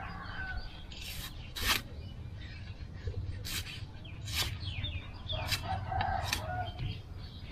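A large machete-style knife chopping the green husk off a young aromatic coconut, about six sharp, separate strikes spaced unevenly, trimming it down to the white husk. A rooster crows and chickens cluck in the background.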